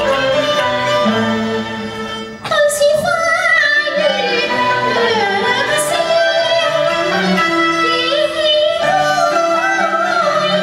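Cantonese opera duet song: bowed-string accompaniment plays alone for about two seconds, then a woman's singing voice comes in over it with sliding, ornamented pitch.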